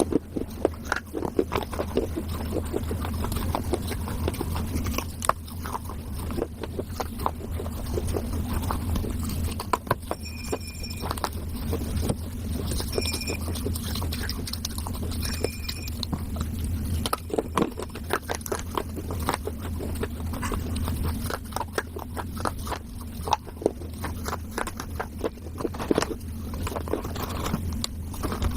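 Close-miked crunching and chewing of pieces of a wet clay diya, many small sharp crunches one after another, over a steady low hum.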